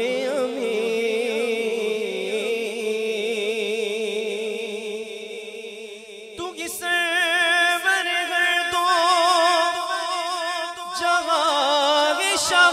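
A man's voice singing a naat unaccompanied into a microphone, drawing out long, wavering melismatic notes. About six seconds in he moves up to a higher, more ornamented phrase.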